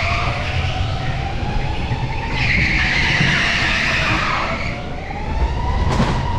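Electric go-kart's motor whining, its pitch falling and rising as the kart slows for corners and speeds up again, over a low steady rumble. The tyres squeal for about two seconds in the middle of a corner, and there is a single sharp knock near the end.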